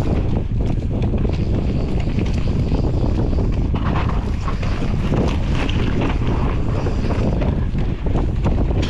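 Wind buffeting the microphone of a mountain biker's POV camera during a fast downhill run, with tyres rolling over dirt and a steady scatter of knocks and rattles from the bike over the trail.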